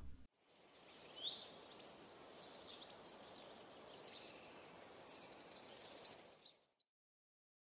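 Small birds chirping: a run of quick, high chirps, most falling in pitch, over a faint outdoor hiss, cutting off suddenly a little before the end.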